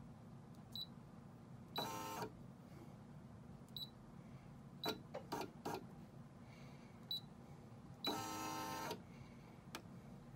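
Embroidery machine's touch panel beeping at several key presses, with its embroidery arm motor buzzing as it moves the hoop to reposition the design: briefly about two seconds in and for about a second near the end.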